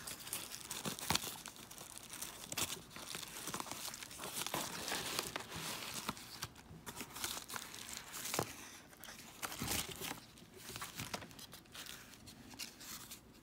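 Yellow padded paper mailer envelope being torn open and handled: paper tearing and crinkling, with irregular crackles and light handling taps as the contents are pulled out.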